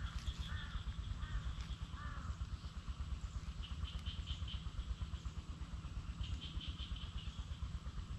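Wind buffeting the microphone with a steady low rumble. A bird calls four times in the first two seconds, and higher chirping trills come and go through the rest.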